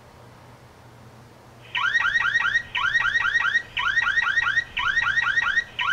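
Electronic alarm siren from a Toucan outdoor security camera's built-in speaker. It starts about two seconds in and repeats bursts of about five quick rising-and-falling chirps, one burst every second.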